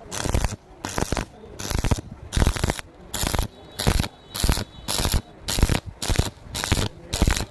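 Stick (SMAW) welding arc crackling in short, regular bursts, a bit over two a second, the arc starting and stopping in quick succession.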